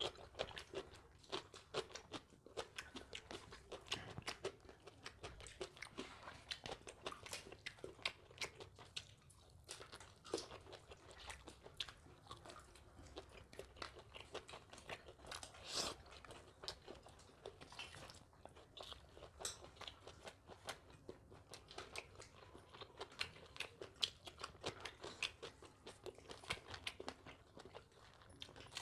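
A person eating close to the microphone: chewing with many short, sharp crunches and mouth clicks, one after another.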